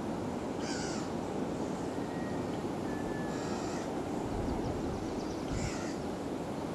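Three short, harsh bird calls, about a second in, near the middle and near the end, over a steady low background noise.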